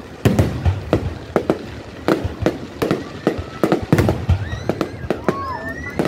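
Aerial firework shells bursting overhead in a rapid, irregular series of sharp bangs, several a second. Thin gliding whistles come in near the end.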